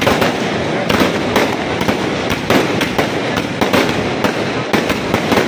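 Fireworks going off overhead: a continuous crackle of bursting stars, broken by sharp bangs at irregular intervals, a few a second.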